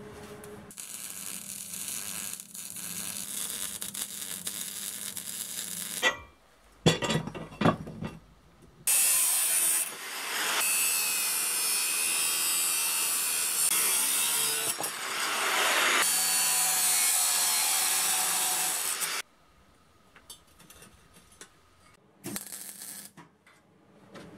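Angle grinder cutting steel with a cutoff disc, a loud steady grinding that runs for about ten seconds. Before it comes a quieter spell of grinding noise, then a few clattering metal knocks. Near the end there are only scattered light knocks.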